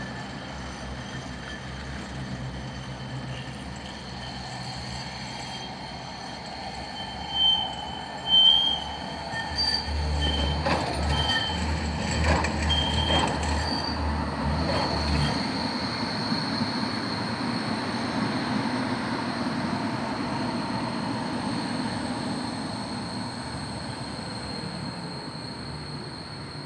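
Tram wheels squealing on the rails: short high squeals about a third of the way in, a low rumble with knocks of the wheels in the middle, then a steady high squeal fading toward the end. The uploader calls this extremely deafening noise and says only watering the rails relieves it.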